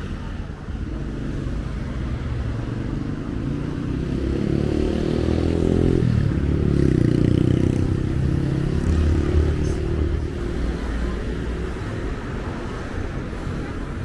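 Road traffic: cars drive past close by. The loudest comes through the middle, its engine note dropping in pitch as it goes by, then fading.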